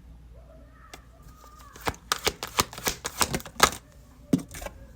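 Tarot cards being handled, a quick run of sharp clicks and taps, then a couple more a second later.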